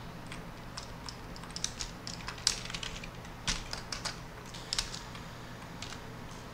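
Typing on a computer keyboard: an irregular run of key clicks, sparser near the end.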